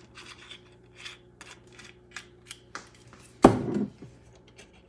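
Olive oil crackling and spitting in a very hot cast iron skillet, smoking from being preheated on high heat: scattered sharp pops. About three and a half seconds in, one loud thump with a short ring, the loudest sound.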